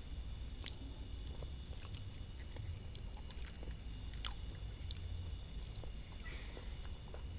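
Faint, soft chewing and wet squishing of ripe durian flesh being pulled from the husk by hand and eaten, with scattered small clicks.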